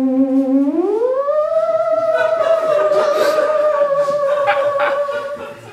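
A single eerie, wavering tone, theremin-like, played as a sound cue. It holds low, slides smoothly up in pitch about a second in, then holds the higher note until it fades near the end.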